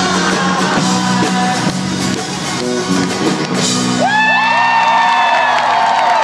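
Live banjo and acoustic guitar band playing the closing bars of a folk-rock song, its last notes ringing. About four seconds in the audience breaks into cheering, with many high whoops and screams.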